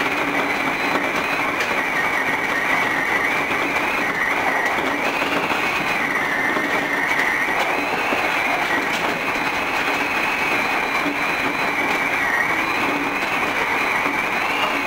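Osaka Metro 66 series electric train running at speed, heard from inside the lead car: a steady rumble of wheels on rail with a high whine that wavers slightly in pitch.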